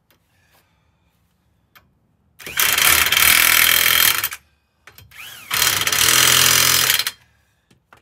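Corded electric impact wrench hammering lug nuts tight on a steel winter-tire wheel: two bursts of about two seconds and a second and a half, with a brief lighter pull of the trigger between them.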